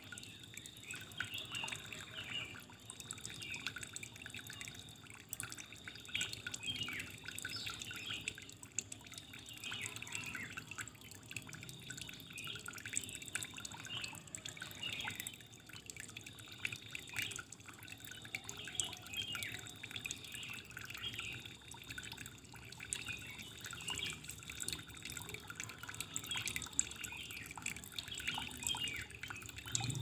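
Water dripping and trickling: many small, irregular drips and splashes over a faint steady wash of running water.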